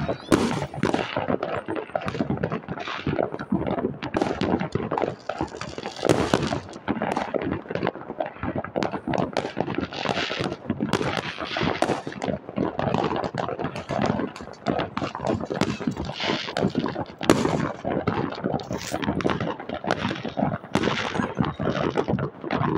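Many fireworks and firecrackers going off at once: a dense, unbroken crackle of bangs and pops, with a few louder bangs standing out.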